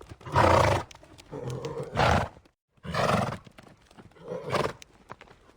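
Horse calling: four loud, harsh calls, each under a second long, with a brief dead gap between the second and third.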